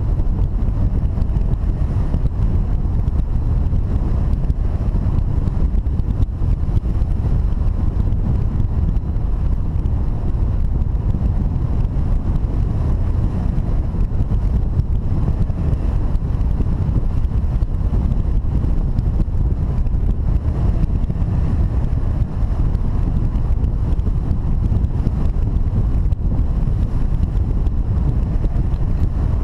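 Wind noise from the airflow over a camera microphone mounted on a hang glider in flight: a steady, loud, low rushing with no engine or beeps.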